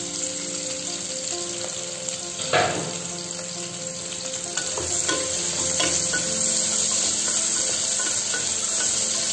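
Sliced onions sizzling in hot oil and ghee in an aluminium pressure cooker, stirred with a wooden spatula. The spatula knocks loudly against the pot about two and a half seconds in, with a few lighter taps a little later.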